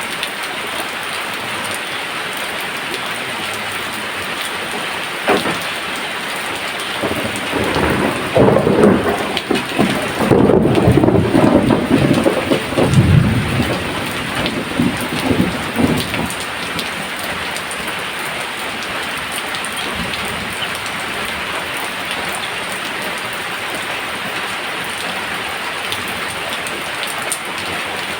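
Steady rain falling, with a roll of thunder that builds about a quarter of the way in, rumbles loudly for several seconds and dies away, leaving the rain alone.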